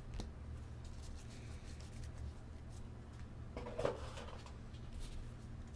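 Quiet room tone with a steady low hum, a faint click just after the start, and a brief murmur from a voice about four seconds in.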